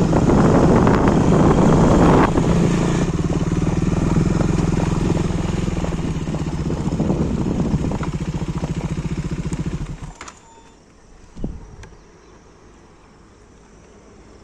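Motorcycle engine running, louder for the first two seconds and then ticking over steadily, until it cuts off about ten seconds in. A single short knock follows a moment later.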